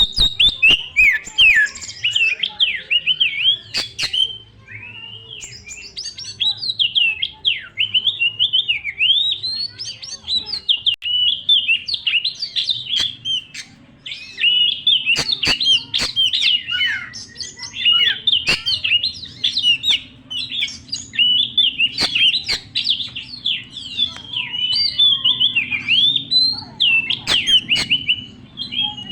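Oriental magpie-robin (kacer) singing a long, varied run of loud whistled phrases and quick chirps, sweeping up and down in pitch, with a quieter lull partway through. A few sharp clicks sound through the song.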